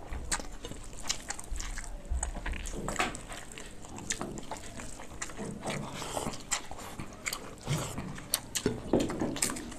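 Two people eating water-soaked rice (panta bhat) with their hands: wet squishing as they mix rice, mashed potato and fried egg on plates, with chewing and mouth smacks. Irregular short sharp clicks and smacks.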